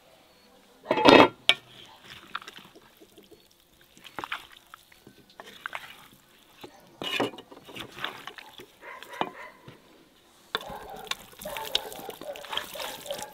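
A loud knock about a second in, then a spoon stirring and scraping a wet meat, chestnut and dried-fruit stew in a cast-iron pan. Near the end the juicy stew is tipped out and lands wetly on cooked rice.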